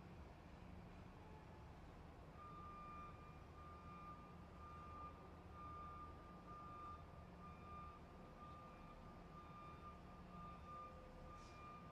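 Faint electronic beep at one steady pitch, repeating at a regular pace from about two seconds in, over a low background hum.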